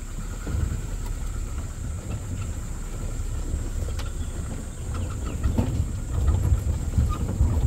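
Safari jeep driving slowly along a rough forest track: a low engine and tyre rumble with scattered knocks and rattles from the vehicle.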